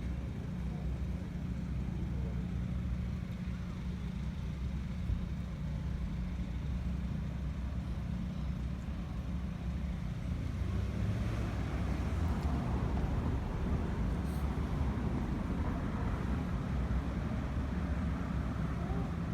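A steady low rumble, like a running motor or vehicle, with a faint hiss above it that grows slightly louder about eleven seconds in.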